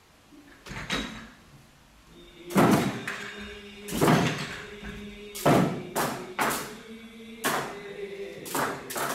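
Small drums worn at the waist by three-lion dance (shishimai) dancers, struck in loud single beats and quick pairs from about two and a half seconds in, over a steady held note. The first couple of seconds are quiet but for one light knock.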